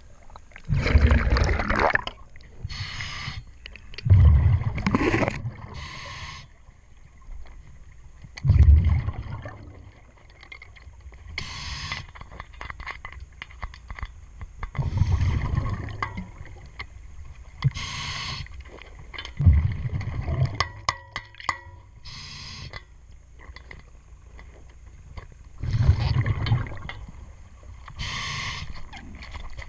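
Scuba diver's regulator breathing underwater: a hiss on each inhale, then a gurgling rush of exhaled bubbles every four to six seconds, six breaths in all. A quick run of sharp clicks comes about two-thirds of the way through.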